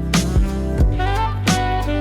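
Outro background music with a steady drum beat, bass and a melodic lead line, in a jazzy, funky style.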